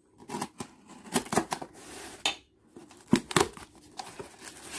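A craft knife cutting through packing tape along the edge of a cardboard box, then the cardboard being pulled open: a series of irregular sharp scrapes, clicks and rustles.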